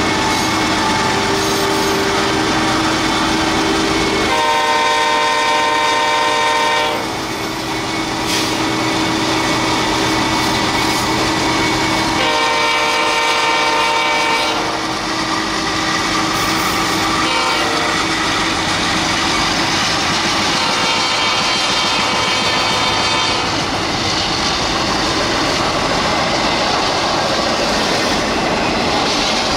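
Freight train passing close, its wheels clattering over the rails. The locomotive horn blows the grade-crossing signal, two long blasts, one short and one long, over the steady rumble of the train.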